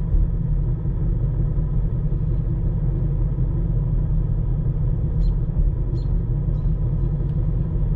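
Ford Mustang's 5.0 Coyote V8 idling steadily with a low rumble, warmed up ahead of a crank relearn.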